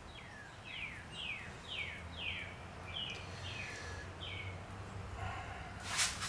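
A bird calling, a series of short chirps that each slide downward in pitch, about two a second, stopping a little past four seconds in. A faint steady low hum runs underneath, and a brief rustling noise comes near the end.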